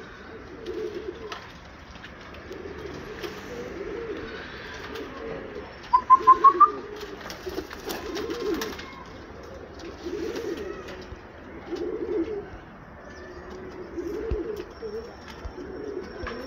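Domestic pigeons cooing over and over, low coos about every second or so. About six seconds in, a quick run of five loud rising chirps cuts in, louder than the cooing.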